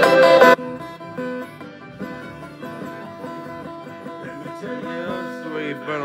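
A loud, full passage of music stops about half a second in. An electric guitar then picks single notes, bending some of them near the end.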